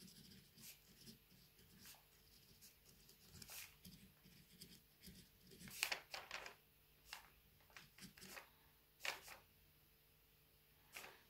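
Faint, scattered scratches and small rustles of a pen writing on a dry bay leaf, a few of them sharper, over a low steady hum.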